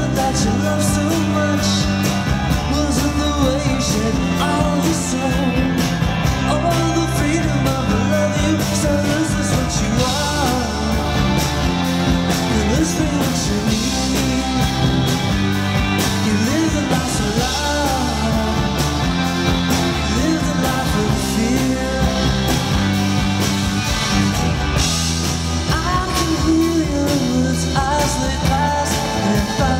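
Live psychedelic rock band playing loudly: electric bass, electric guitar and drum kit, with a male lead vocal singing over them.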